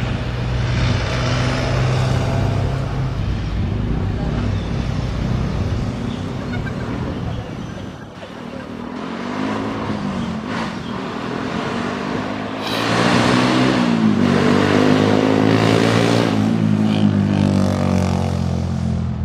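A motor vehicle's engine runs steadily at first, then its pitch rises and falls, and it grows louder in the second half.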